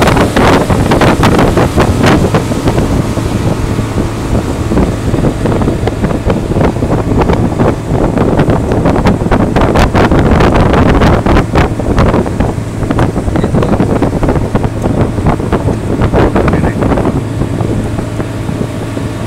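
Speedboat running at speed over open sea: a steady low engine drone under heavy wind buffeting on the microphone and the rush of water along the hull.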